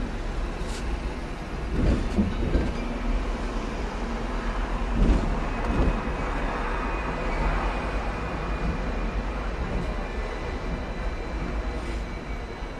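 Hong Kong double-decker electric tram running along its rails: a steady rumble of wheels on track, with a few knocks about two, five and six seconds in.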